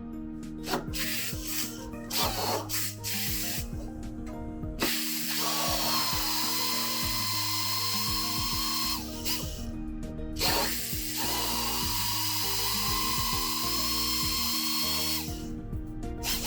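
Power drill boring out spot welds in a steel car-body panel to separate it: two runs of about four seconds each with a steady high whine, after a few light taps and clicks.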